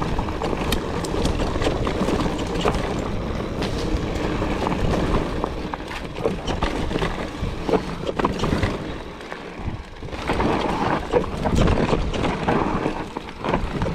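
Mountain bike rolling fast down a rocky trail: tyres crunching over loose stones and gravel, with wind rushing on the microphone and frequent clicks and knocks as the bike rattles over the bumps. It eases briefly about nine and a half seconds in.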